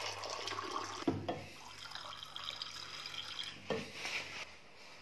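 Water pouring from a stainless-steel flask into a steel tumbler, with two sharp knocks of metal, about a second in and again near the end.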